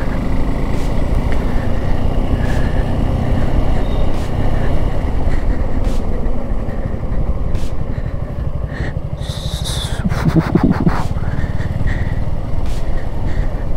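Suzuki V-Strom SX 250's single-cylinder engine running steadily under the rider, heard through a helmet mic along with road and wind noise. A brief louder sound cuts in about ten seconds in.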